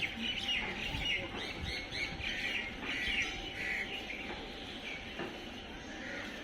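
Small birds chirping busily in many quick calls over steady background noise, thinning out after about four seconds.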